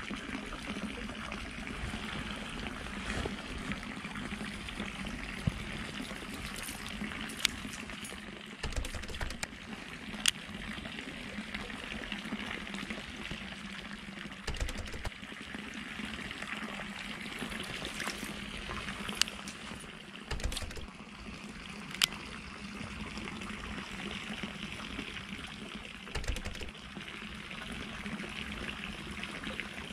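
Steady sound of running, trickling water, with a few sharp clicks now and then from a baitcasting reel being handled.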